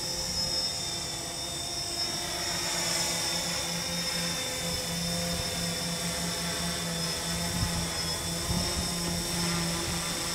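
XAircraft X650 quadcopter hovering overhead, its four brushless electric motors and propellers giving a steady whine of several high tones, with small shifts in pitch as the motors adjust to hold position.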